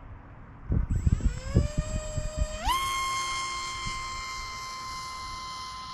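Brushless electric motor and propeller of an RC aircraft spinning up: a whine that starts about a second in under a few low thumps, rises slowly, then jumps to a higher pitch and holds steady at throttle.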